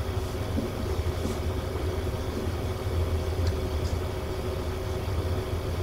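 Steady low background hum of room equipment, with a few faint short squeaks of a marker writing on a whiteboard.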